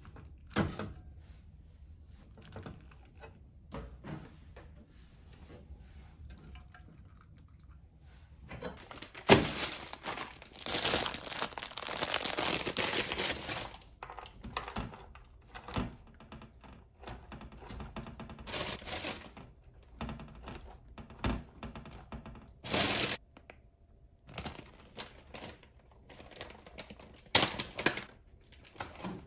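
Hands packing napa cabbage and pork belly into a hot pot pan: soft crinkling and rustling of the leaves with light knocks against the pan. About nine seconds in comes a louder spell of crinkling and tearing lasting several seconds, with a few shorter rustling bursts later on.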